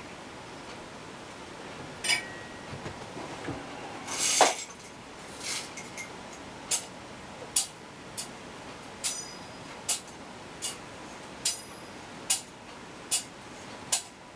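Sharp clinks: a few scattered ones and a louder scraping clink about four seconds in, then a steady run of clinks, about one every 0.8 seconds.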